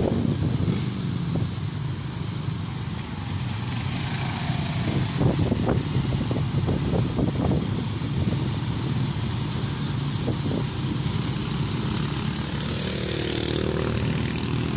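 Motorcycles running at low speed in a convoy: a steady engine rumble with a hiss of road and wind noise over it.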